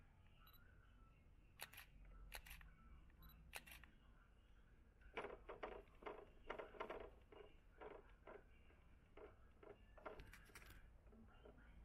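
Faint, irregular clicks and ticks of a hand screwdriver driving a small screw into a plastic frame part of an automatic mahjong table. A few come scattered at first, then a quick run of them about five seconds in.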